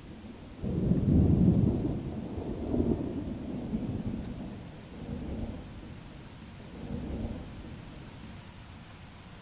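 Thunder rumbling over steady rain. A loud roll begins about half a second in and peaks over the next second, and weaker rolls follow around three, five and seven seconds in as it dies away.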